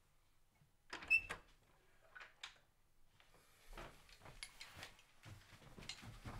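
Interior door's metal lever handle and latch clicking about a second in, with a brief metallic ring, and the door being opened. Footsteps follow from about halfway through.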